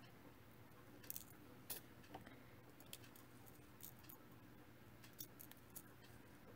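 Faint, irregular little clicks of seed beads in a small pot as a needle picks them up for threading.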